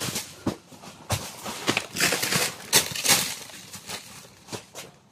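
Dry banana leaves rustling and crackling in irregular bursts as someone moves through them, dying down near the end.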